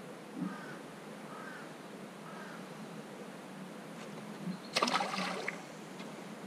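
A small sea bass splashing back into the water as it is released, about five seconds in, over a steady background hiss. Earlier, a bird calls three times, about a second apart.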